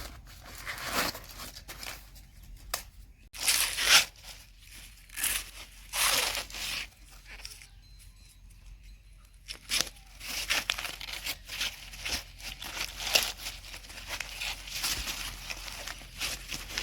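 Husks being torn off ears of sweet corn by hand: a string of ripping and rustling tears, with a quieter gap of a couple of seconds in the middle.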